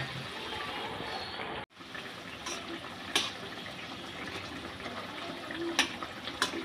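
Brinjal curry gravy bubbling at a simmer in a metal wok, with a spatula stirring it and clicking sharply against the pan a few times in the second half. The sound cuts out for an instant just before two seconds in.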